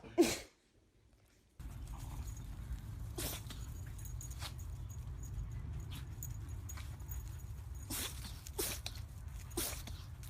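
A pet sneezes once, loud and sharp, right at the start. After a cut, a steady low rumble runs under a string of short, sharp sneezing sounds spaced a second or more apart.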